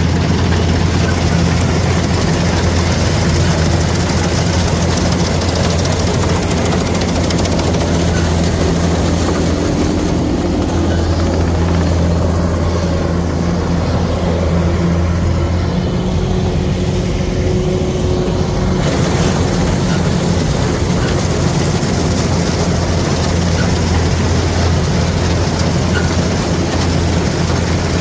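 Kubota rice combine harvester running, a loud steady low engine drone with its working machinery, the hum shifting briefly around the middle.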